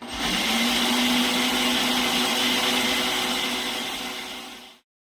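Electric kitchen blender running, grinding toasted peanuts and cinnamon pieces with water and sugar: it starts suddenly, runs with a steady motor hum, and fades out just before the end.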